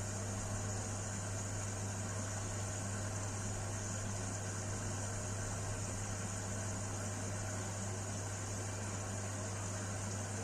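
Washing machine running with a steady, even hum.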